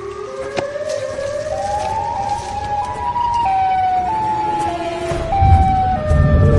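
Siren-like pitched tone that glides upward, then alternates between held high and low notes that step down in pitch. A low rumble comes in near the end.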